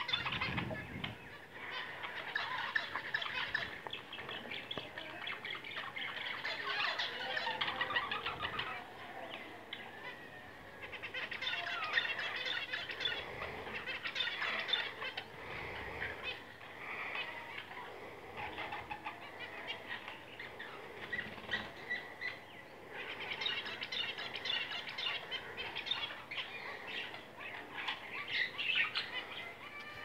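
Caged budgerigars and finches chattering and warbling: a continuous, busy twitter of many short, quick calls that swells and eases in loudness.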